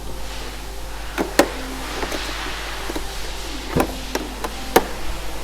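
Tools being handled in a toolbox drawer: a handful of sharp clicks and knocks, the loudest about a second and a half in and near the end, over a steady low background noise.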